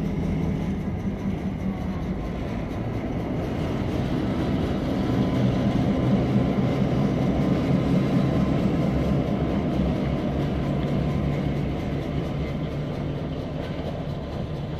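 Canadian National F3A diesel locomotive No. 9000 running past on its own, its EMD 567 engine drumming steadily. It is loudest about halfway through as it passes, then fades as it draws away.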